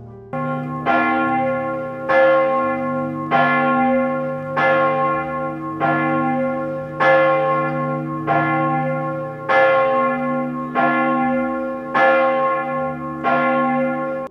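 Large church bell tolling, struck about once every 1.2 seconds, each stroke ringing on into the next.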